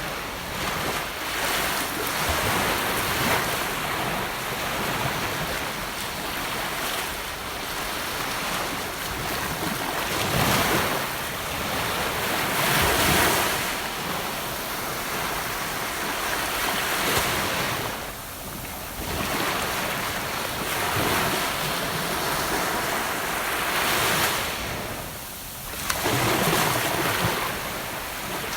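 Gentle ocean waves breaking and washing up on a beach, a steady wash of surf that swells and eases every few seconds.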